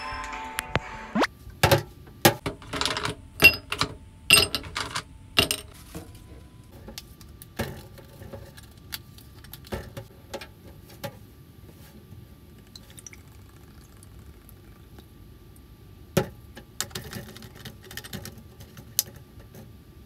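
Ice cubes clinking as they drop into a drinking glass, a run of sharp glassy clicks in the first few seconds. Then scattered knocks and clicks from the glass and carton being handled on a stainless steel counter, with a sharper knock about two-thirds of the way through.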